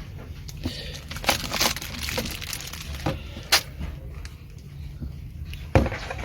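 Hard plastic parts and packaging being handled: several sharp clicks and knocks with crinkling between, the loudest at about a second and a half, three and a half seconds, and near the end.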